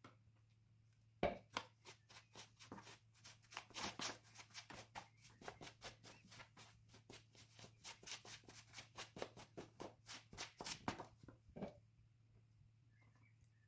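Plastic dough scrapers scraping and knocking through flour and water in a plastic dough tub as a biga pre-dough is mixed by hand: a fast run of short strokes, several a second, starting about a second in and stopping near the end.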